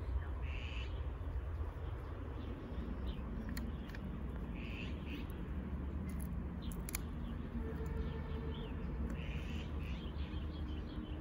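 Steady low rumble with a bird calling three times, about four and a half seconds apart, and a few sharp clicks of a golden retriever's teeth on a dry stick.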